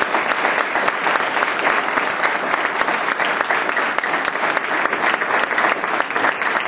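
Audience applauding: sustained, dense clapping that keeps going steadily.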